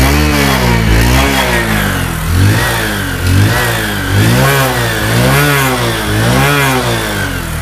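Bajaj Discover 125's single-cylinder 125 cc engine revved by hand in repeated throttle blips, the pitch rising and falling about once a second. The seller calls it a showroom-condition sound from an engine that has never been opened.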